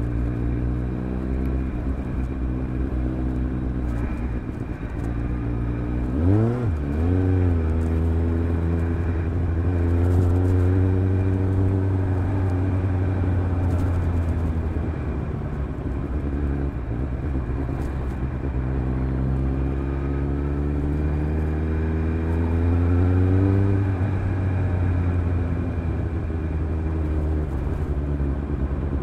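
Suzuki GSR750's inline-four engine through a Fuel stainless round MicroMini exhaust with the dB-killer fitted, running at town speed. A quick rev rises and falls about six seconds in, then the engine runs steadily and climbs slowly in pitch under acceleration before falling away sharply some five seconds before the end. The exhaust note echoes off the buildings lining the street.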